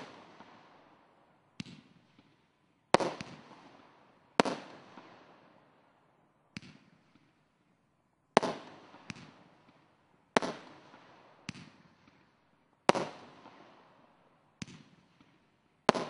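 SkyLine 'Street Collection' consumer firework cake firing shot after shot: about a dozen sharp bangs, irregularly spaced one to two seconds apart, each followed by a fading tail.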